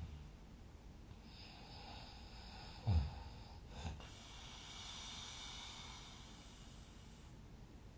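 A sleeper breathing quietly between snores. There is a short, sharp snort about three seconds in and a smaller one just after it, then a long, soft breath.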